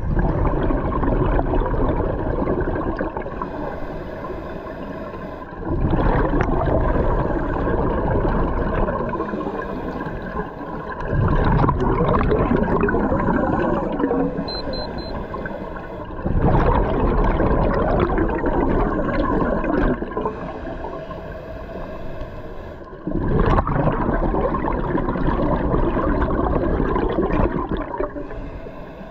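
Scuba diver breathing through a regulator underwater, each exhaled breath bubbling out in a loud rush. Five breaths come about every five to six seconds, each fading away before the next.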